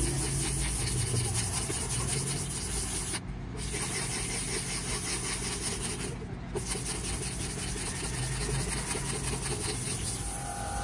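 Hand sanding of a plastic car tail light lens with a small piece of sandpaper: a steady scratchy rubbing made of quick back-and-forth strokes, with two brief pauses about three and six seconds in.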